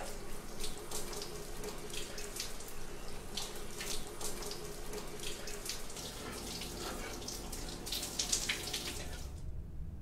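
Shower running in a tiled stall, the spray splashing onto a person's head and hair. The water sound cuts off near the end.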